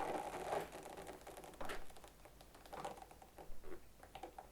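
Scattered light clicks and taps as the generator is tipped and handled while its oil drains, with a soft hiss fading out over the first second.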